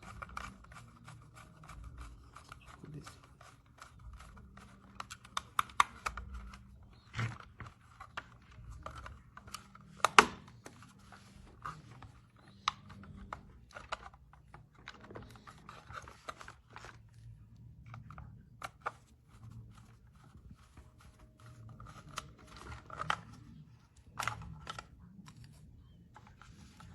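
Irregular clicks, taps and rustles of hands handling a plastic toy RC truck and fitting its batteries, with sharper clicks about ten seconds in and again near the end.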